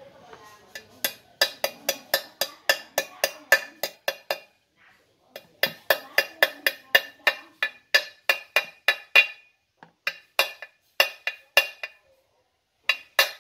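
Repeated light metal-on-metal taps, about three a second in bursts of a few seconds with short pauses, each with a brief ring: a needle roller bearing being tapped into its seat in a motorcycle clutch cover with a hand tool.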